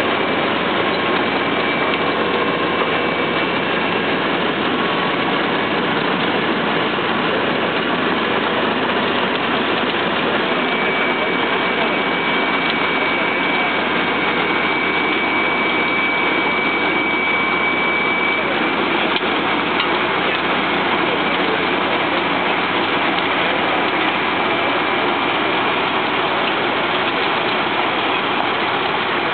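Grimme CS 150 Combi-Star RotaPower stone separator at work behind a tractor. The tractor engine and the machine run steadily, with a continuous rush of soil sifting through and pouring out as stones are separated from the soil. A thin high whine comes in for several seconds near the middle.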